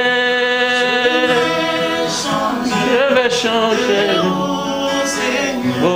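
A man singing a French gospel song live with acoustic guitar. He holds one long note for about two seconds, then sings shorter notes that bend up and down.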